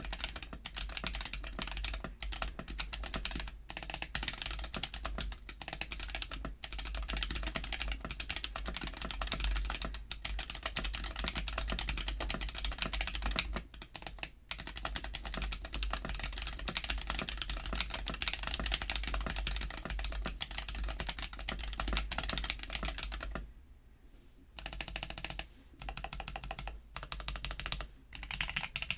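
Steady, fast typing on a Womier K66 mechanical keyboard with stock Akko CS Ocean Blue tactile switches, PBT keycaps and lubed stabilizers: a dense run of keystroke clacks, broken by a couple of brief pauses.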